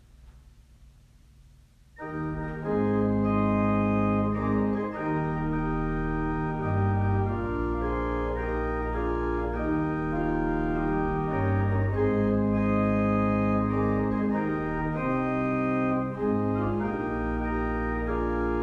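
Organ playing slow, held chords, starting about two seconds in after a near-quiet moment.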